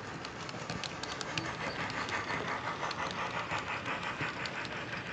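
Model steam train running past on a model railroad: quick, even chuffing pulses, about five a second, over light clicking of the model wheels on the rail joints, strongest about a second and a half in.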